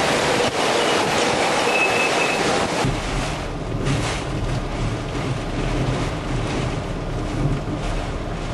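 Hurricane-force wind during Katrina's landfall: a loud, hissing rush, which about three seconds in turns to a deep, steady low rumble with less hiss.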